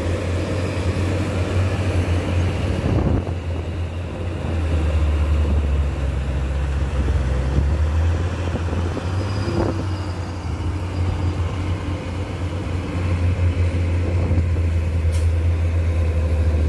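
Diesel engine of a Hino six-wheel dump truck loaded with coal, running hard under load as it climbs a muddy pit road: a steady, deep drone. There is a brief sharp click near the end.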